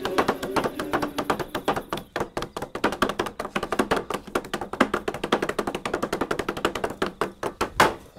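Rapid tapping of shoes on a hard floor, several sharp taps a second like a fast tap dance, with one louder knock near the end.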